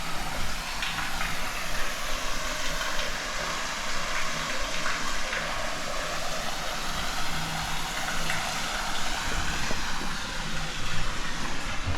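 Running water of a stream rushing steadily, an even hiss with no break.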